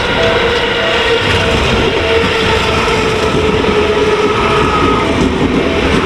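Level-crossing warning bell ringing in an even, repeating ding over the loud, steady rumble and wheel clatter of an electric commuter train passing close by.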